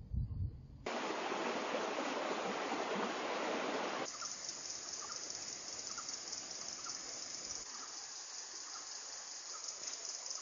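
Outdoor forest ambience with no voices. A loud, even rushing noise for about three seconds changes suddenly about four seconds in to a quieter steady high-pitched hiss with faint ticks about once a second.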